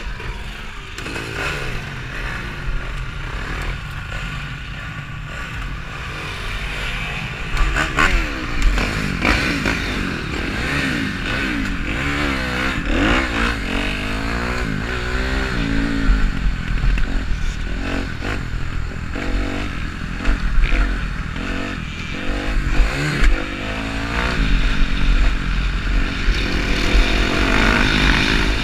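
Kawasaki KX250F four-stroke motocross bike being ridden over rough ground, its engine revving up and down again and again as the rider works through the gears.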